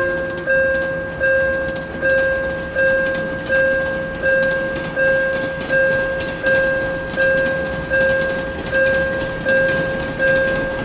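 Japanese railway crossing warning bell clanging steadily, about every three-quarters of a second, each strike ringing out and fading. Underneath runs the steady noise of a passing train, which cuts off suddenly near the end.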